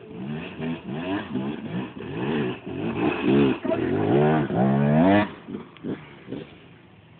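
Dirt bike engine revving hard in quick, repeated rises and falls as the bike climbs past, loudest a few seconds in and dropping away suddenly after about five seconds.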